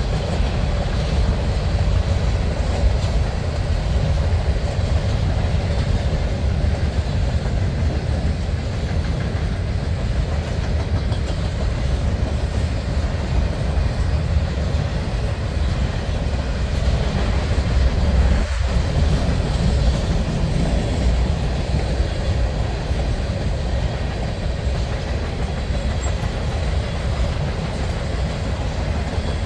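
Mixed manifest freight train rolling past at steady speed: a continuous low rumble from the wheels of its tank cars and covered hoppers on the rails.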